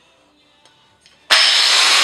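Electric angle grinder switched on about a second in, coming up to speed at once and running loud and steady, just before it is put to a lawnmower blade to sharpen it.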